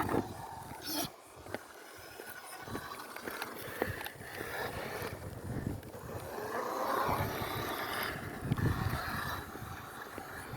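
Toy-grade RC car's small electric motor and gears whining, the pitch rising and falling as it is driven over rough ground, with scattered clicks and knocks.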